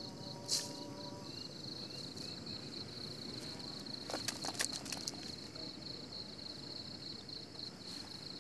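Insects trilling steadily at a high pitch, with a few sharp clicks about half a second in and a cluster of them around four to five seconds in.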